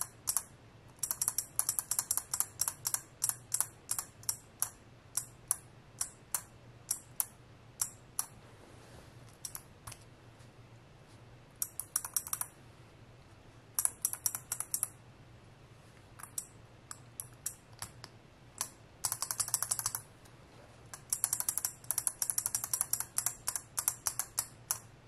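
A single beam-spring key switch in a small custom housing being pressed repeatedly with a fingertip, giving sharp clicks. The clicks come sometimes as separate presses about one a second and sometimes as fast runs of rapid presses, with a couple of short pauses.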